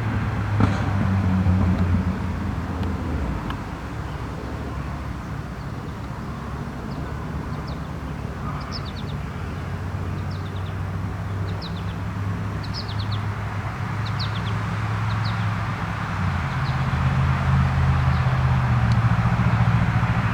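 Outdoor ambience: a vehicle engine running steadily as a low hum, with a small bird giving short, high, falling chirps, clustered between about a third and three-quarters of the way through.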